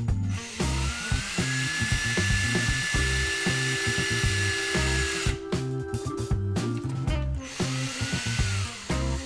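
Power drill drilling out a motorcycle carburettor slide for a jet kit: the drill's whine rises to speed about a second in, holds steady for about four seconds and stops, then a shorter run near the end. Background music with a steady beat plays underneath.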